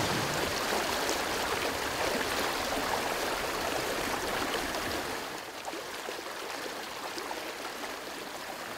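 Mountain trout stream rushing over rocks, a steady wash of running water that drops a little in level about five seconds in.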